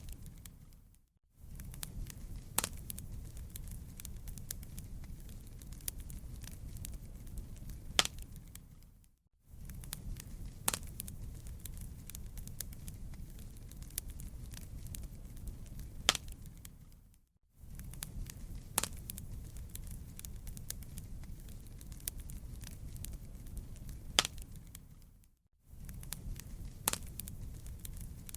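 Campfire of burning wood crackling, with a steady low rumble and sharp pops every second or two. It fades out briefly and back in about every eight seconds.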